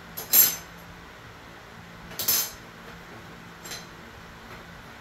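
Metal pieces clinking and clattering as they are handled and set down, three times: a loud clatter right at the start, another about two seconds in, and a faint one near the end.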